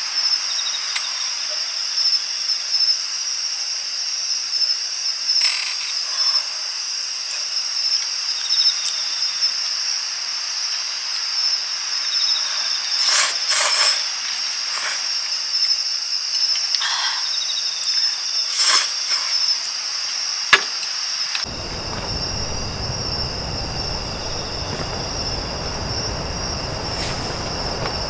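Crickets chirping in a steady, continuous high trill, with a few scattered clicks. About three quarters of the way in, a low rushing noise joins them.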